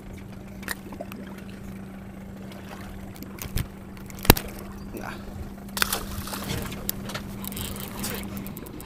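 Sounds aboard a small fishing boat: water sloshing and trickling, with a steady hum that stops near the end. Scattered knocks and clicks, the sharpest a little past the middle.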